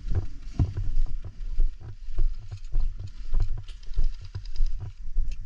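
Footsteps of a walking player, about two steps a second, each with a dull thud and a rattle of gear.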